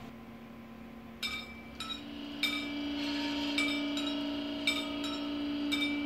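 Sharp metallic clinks that ring on briefly, about six of them roughly a second apart, over the steady hum of a slowly moving model track vehicle's small electric motor.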